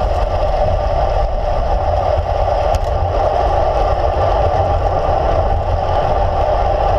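Steady wind rushing over a handlebar-mounted camera's microphone on a moving road bike, with a low road and tyre rumble underneath.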